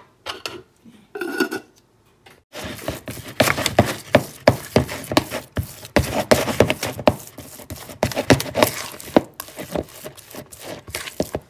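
Metal spoon mixing seasoned minced pork for meatballs in a bowl: rapid, continuous scraping and clinking of the spoon against the bowl. It starts about two and a half seconds in after a few light taps, and stops just before the end.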